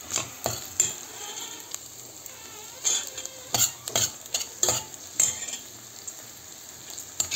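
Onions and tomato paste sizzling in hot oil in a stainless steel pot while a perforated metal skimmer stirs them, scraping and clinking against the pot at irregular intervals.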